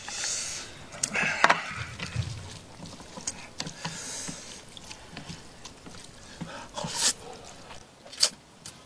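Chopsticks clicking and scraping against a plate as sauce is stirred into noodles. Near the end comes a short noisy burst of eating, a mouthful of noodles taken.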